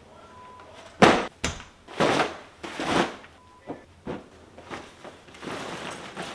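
Packed bags and clothing dropped onto a carpeted floor, four thumps in the first three seconds, then fabric rustling as gear is stuffed into a duffel bag.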